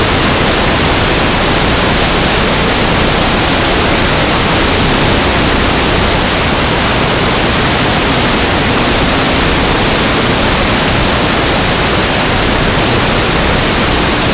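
Loud, steady hiss of static with nothing else audible: the audio track carries only noise instead of the gym's sound.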